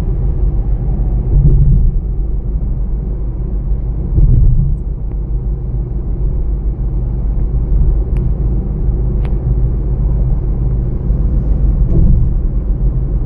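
Steady low rumble of a motor vehicle, with louder swells about one and a half and four seconds in and a few faint clicks.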